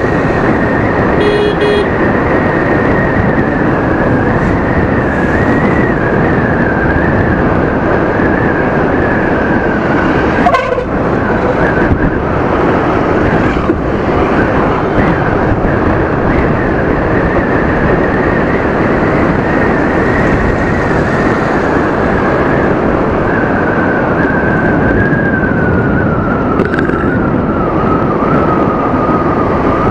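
Aprilia SXR 160 scooter's single-cylinder engine running at road speed under a loud rush of wind on the microphone, with a steady high whine that slowly falls in pitch over the last several seconds. A short horn beep sounds about a second and a half in.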